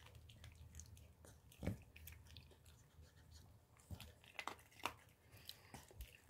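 Yorkshire terrier chewing a dog treat: faint, scattered crunches, one a little under two seconds in and a quick cluster of several about four to five seconds in.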